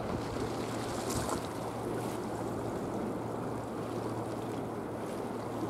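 Steady rush of wind and choppy sea water, with a faint, steady low hum underneath.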